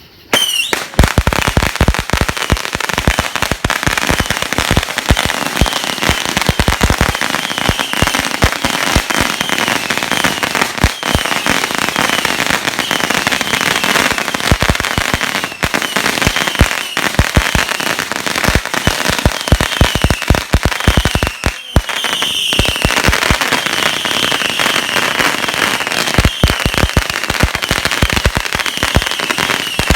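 Dense, continuous crackling of many firecrackers going off in rapid succession, with a brief lull a little after the middle. A high chirping tone repeats a little more than once a second over the pops.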